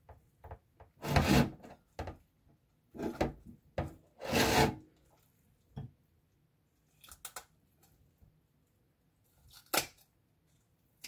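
Whole roasted chicken being cut with kitchen scissors and pulled apart by hand: several short cutting and tearing sounds. The loudest come about a second in and again at four to five seconds, and a last sharp one near the end.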